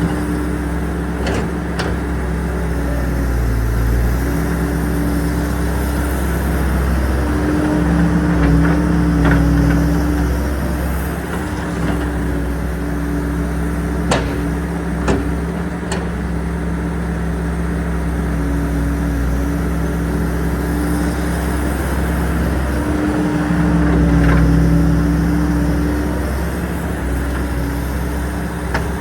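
Excavator's diesel engine running steadily, swelling louder a couple of times as its note shifts, with two sharp clicks about halfway through.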